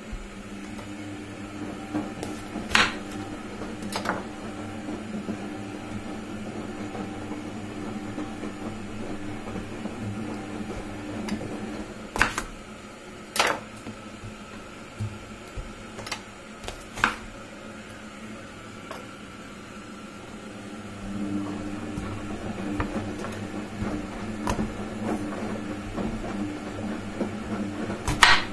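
A kitchen knife cutting apples on a wooden cutting board: about eight sharp knocks of the blade or fruit on the board, scattered through. Underneath runs a steady low machine hum that drops off in the middle and comes back stronger.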